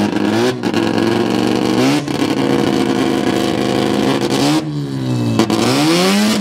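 Mazda rotary engine being revved in place. Its pitch rises and falls several times, with a sharp climb about two seconds in and a drop and climb again near the end.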